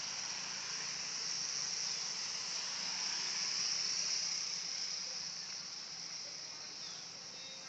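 Swiftlet lure call recording: a continuous high-pitched chirring of many swiftlets, swelling about halfway through and easing off near the end.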